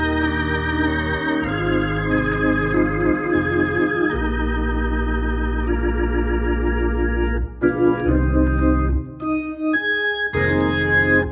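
Hammond B3 organ played through a Leslie 122 speaker: full held chords over bass notes with a quick regular wavering, then short detached chords with brief gaps toward the end.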